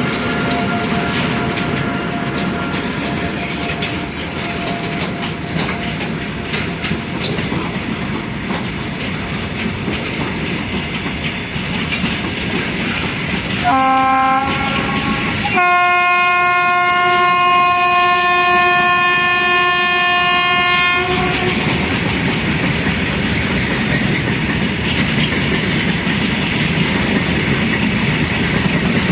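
A train running past with a steady rumble and clatter of wheels, and high wheel squeal in the first few seconds. Near the middle, a WAG-9 electric locomotive's horn sounds: one short blast, then a longer, steady blast of about five seconds.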